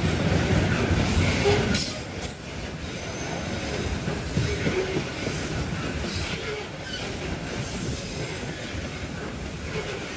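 Coal freight train wagons rolling past on the rails, with wheels clattering over rail joints and squealing at times. It is loudest for the first couple of seconds, then drops to a steadier rumble.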